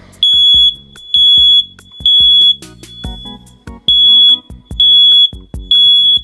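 Smoke alarm sounding during a button test: loud, high-pitched beeps in the three-beep pattern, three beeps, a short pause, then three more.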